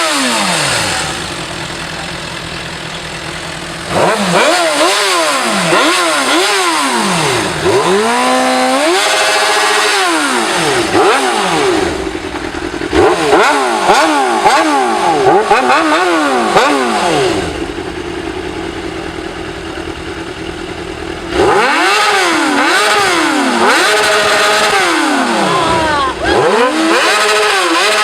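Suzuki GSR 600 inline-four engine revved from idle in repeated quick throttle blips, each rising and falling in pitch, with one longer held rev about nine seconds in. It drops back to idle briefly twice, early on and again for a few seconds past the middle.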